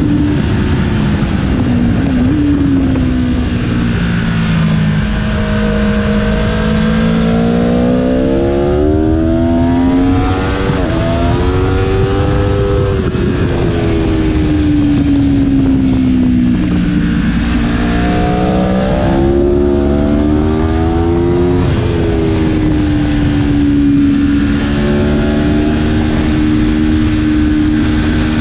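Aprilia Tuono V4 1100's 65-degree V4 engine ridden hard on track, heard from on board over steady wind rush. The revs fall, climb for several seconds, break briefly at gear changes and fall again, then hold fairly steady near the end as the bike brakes, downshifts and accelerates through corners.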